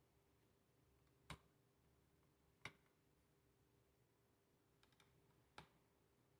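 Near silence, broken by three faint sharp clicks and a few smaller ticks: small hard parts and a screwdriver being handled on an opened laptop.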